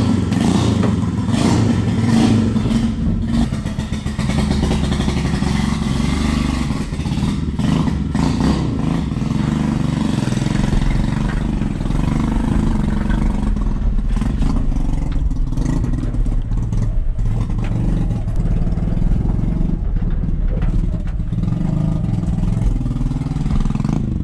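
Small pit bike engine running under heavy load and revving as it tows a car on a strap, heard from inside the towed car, with scattered clicks and clatter.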